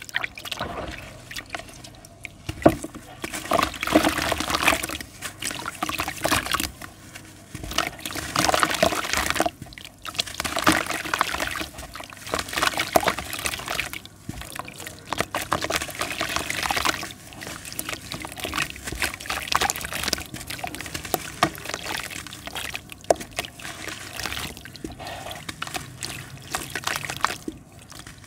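Water sloshing, trickling and dripping as hands dip, squeeze and crumble a lump of soaked red dirt in a plastic tub of water, in irregular bursts with short pauses.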